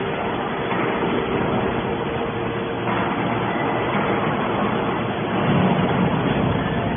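Hydraulic can baler running: a steady machine hum and noise from its pump and press, swelling slightly about five and a half seconds in.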